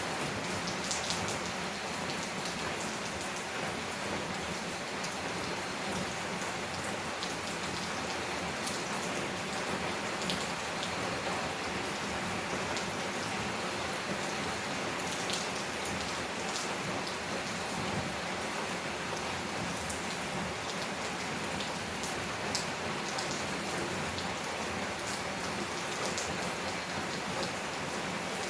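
Steady heavy rain falling on a tin roof and leaves, with scattered sharp drop ticks.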